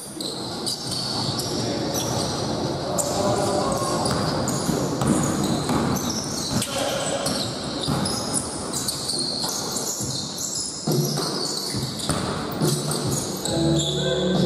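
A ball game on an indoor court: a ball bouncing on a hard floor and shoes squeaking, with players calling out in an echoing hall.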